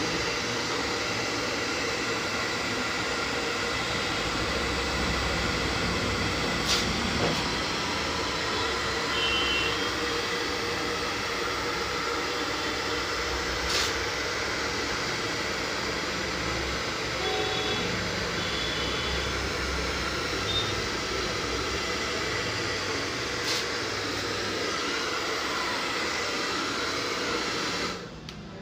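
Hand-held hair dryer blowing steadily, drying a freshly washed screen-printing frame, with a few faint clicks along the way. It cuts off near the end.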